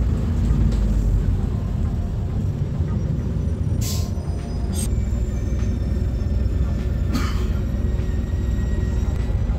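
Steady low rumble of a city bus's engine and road noise heard from inside the bus, with short hisses about four, five and seven seconds in.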